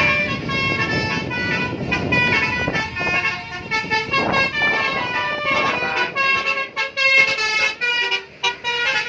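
Indonesian 'telolet' bus horn playing a quick melody: several horn notes sound together and jump to new pitches every fraction of a second. A low background rumble sits under it during the first few seconds.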